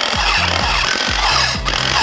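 A power tool running noisily against the metal of a water pump being dismantled, under background music with a steady beat.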